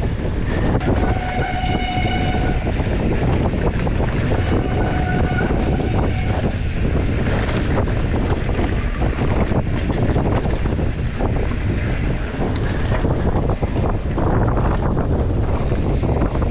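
Wind buffeting the microphone of a handlebar camera on a mountain bike riding fast down a rooty forest trail, with the bike's rattling and knocks over roots. A brief high squeal about a second in and a shorter one around five seconds.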